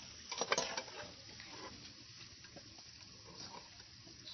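Potato chips frying in a pot of hot oil: a faint, steady sizzle. About half a second in comes a quick cluster of clicks and clinks from the metal slotted spoon working in the pot.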